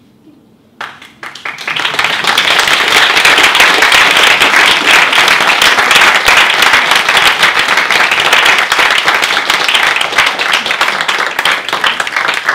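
Audience applause: after a hush, clapping breaks out suddenly about a second in and quickly swells to a full, dense clatter of many hands.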